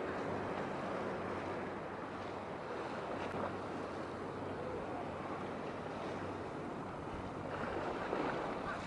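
Steady wind on the microphone and water noise across a strait, with a faint low steady hum underneath.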